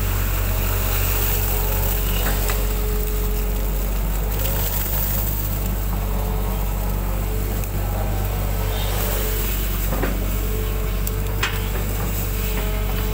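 Hitachi hydraulic excavator running steadily, heard from the cab, with a thin steady whine over the engine. A few short sharp knocks come in the last few seconds as the bucket is swung over and set down.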